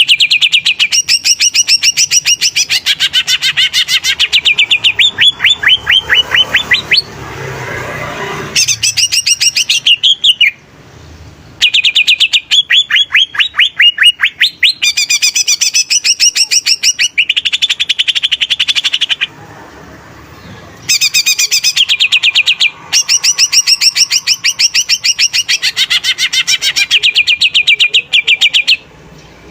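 Greater green leafbird (cucak ijo) singing hard: long, loud runs of rapid, shrill repeated notes, some falling in pitch, in phrases several seconds long separated by short pauses.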